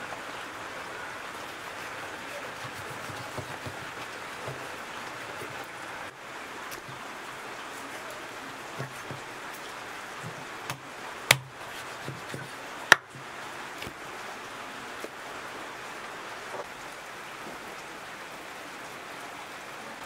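A cleaver chopping pork ribs on a wooden chopping block: scattered dull thuds, and two sharp cracks about a second and a half apart near the middle. A steady hiss like rain runs underneath.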